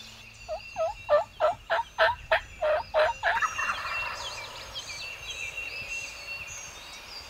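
Wild turkey calling: a run of about nine evenly spaced loud notes, about three a second, over the first three seconds. Small birds chirp faintly behind and carry on after the turkey stops.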